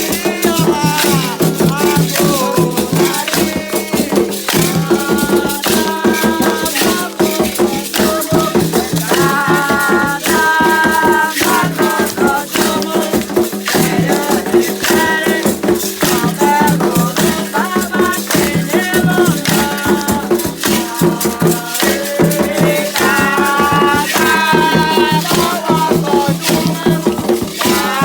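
Candomblé song for Xangô: singing voices over a continuous shaken rattle.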